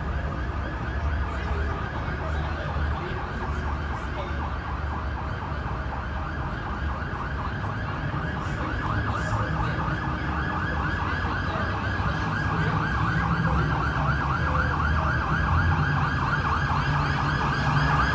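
An electronic siren warbles in quick, evenly repeated sweeps without a break, over the low rumble of a vehicle engine that grows a little stronger about twelve seconds in.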